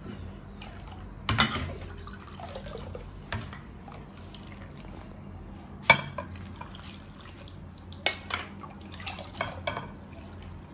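Pig's blood mixture being poured and ladled from a glass bowl, with a metal ladle clinking against the glass several times; the sharpest clink comes about six seconds in.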